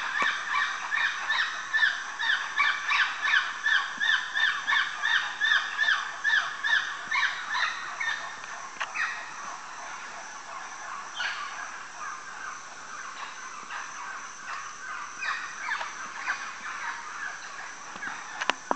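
Common woolly monkey calling: a rapid series of short, arching calls, about three a second, that fades out around eight seconds in, followed by a few scattered calls.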